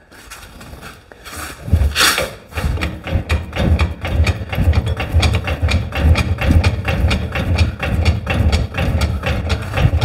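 Hydraulic floor jack being pumped by its long handle to raise the rear of a 1950 Ford, a fast, even run of clicks and clunks that starts about two seconds in and keeps going.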